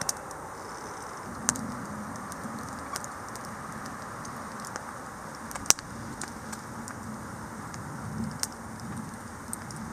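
Camp cooking stove with sausage on it: a steady hiss with a few sharp crackles scattered a second or more apart, the sharpest about halfway through.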